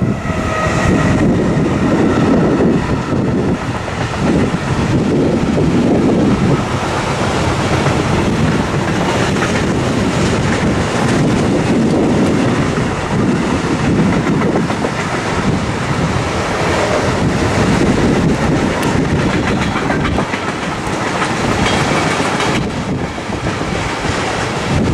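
A long container freight train passing close by, its wagons' wheels running steadily over the rails.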